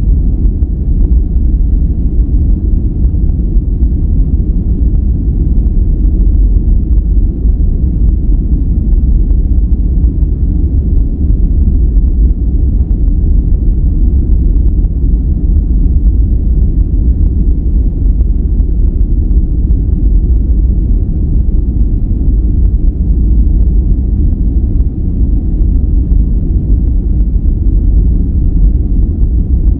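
Continuous relaxation noise track: a loud, steady, deep rumbling hiss with almost no treble, unchanging, its weight low like brown noise rather than bright white noise.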